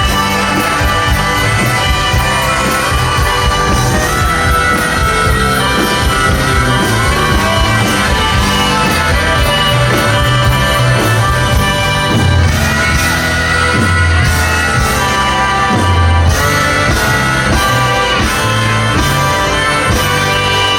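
Live rock band playing loudly at a stadium concert, with a steady drum beat and heavy bass, and a singer's voice over it.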